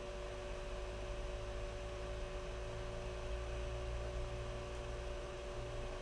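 Tandy 1000 TX computer's power-supply fan running, a steady hum with two steady tones over it.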